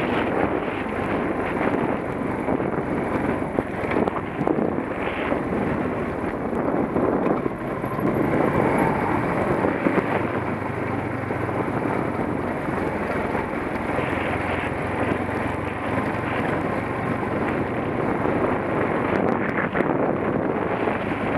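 Suzuki DR 350 single-cylinder four-stroke dirt bike engine running under way, mixed with steady wind buffeting the helmet-mounted microphone.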